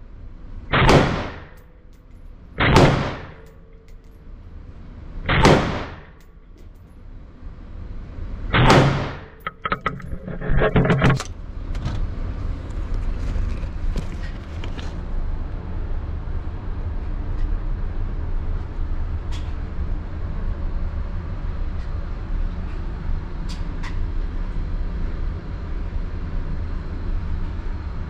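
Four shots from a Ruger AR-556 5.56 mm rifle at an indoor range, each ringing briefly off the walls, spaced irregularly over about eight seconds. A short rattle of clicks follows, then a steady low rumble for the rest.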